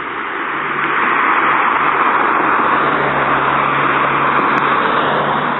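A car driving past on the road: its tyre and engine noise swells from about a second in, holds through the middle, then fades, with no horn sounding.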